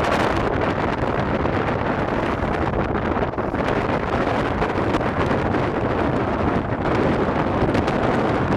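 Heavy wind buffeting the microphone on a boat under way. Underneath it is the steady low drone of twin 40 hp Evinrude outboards running.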